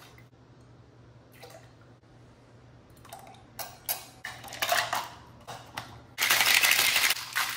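Scattered clinks of a metal jigger and stainless steel shaker tin being handled, then about six seconds in a loud continuous rattle, lasting just over a second, as a Boston shaker (a glass pushed into a metal tin) is shaken.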